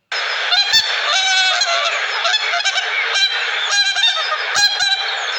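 A flock of domestic fowl calling, many short overlapping calls at once over a dense background din.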